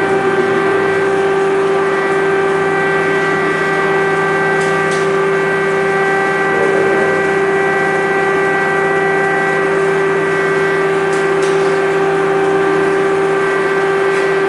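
Air-raid siren holding one steady, unwavering pitch. The signal warns of a missile or air-strike threat and means take shelter.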